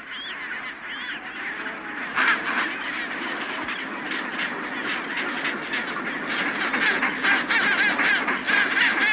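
A large chinstrap penguin breeding colony calling: many birds' squawking calls overlap into a dense chorus that grows louder toward the end.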